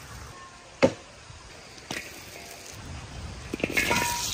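Open wood fire under a large wok, with a couple of sharp cracks about one and two seconds in; near the end sliced vegetables are dropped into the hot wok and start to sizzle.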